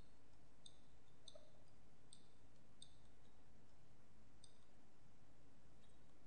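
Computer mouse button clicks while dragging vertices in 3D modelling software: about half a dozen faint, sharp clicks at uneven intervals, over a faint steady background hum.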